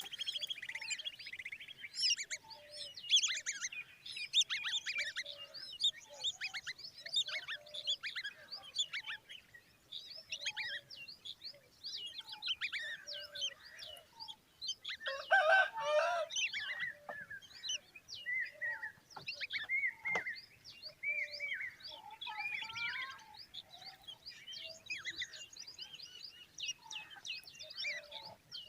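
Common babbler nestlings and adult calling continually in many short, high, overlapping chirps and trills, with a louder, harsher burst of calls about halfway through.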